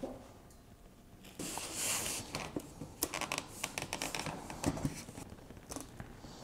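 Duct tape being pulled off the roll and pressed down by hand over the joint between a sheet-metal duct cone and a portable blower: a rasp of tape unrolling about a second and a half in, then a run of small clicks and rustles as it is handled and smoothed.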